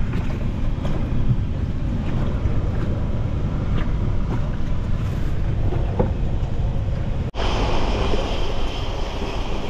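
Wind buffeting the microphone over rushing, churning water of the power plant's warm-water outflow current. About seven seconds in the sound drops out for an instant, then resumes with more hiss.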